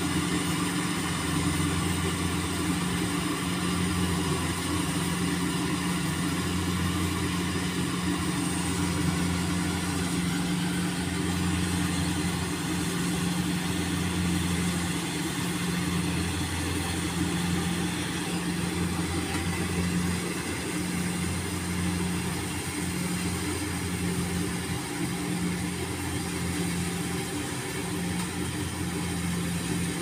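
Rice combine harvester's engine running at a steady speed as the machine works through the rice field, a constant even drone.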